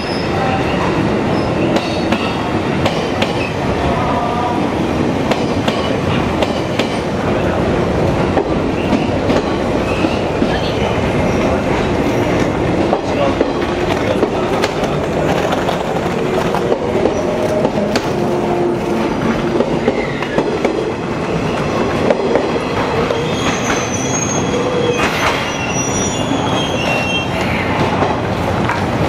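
Train running close past along a station platform, its wheels clicking over rail joints, with a few brief high-pitched wheel squeals in the later part.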